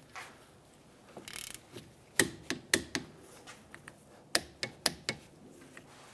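Ratcheting torque wrench tightening rear brake caliper bolts to 25 foot-pounds: sharp metallic clicks in two short groups, about two seconds in and again about four and a half seconds in.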